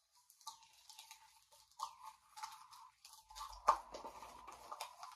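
Small snack pouch of Goldfish crackers crinkling and crackling as it is handled and pulled open by hand, with one sharp, loud tear of the bag about three and a half seconds in.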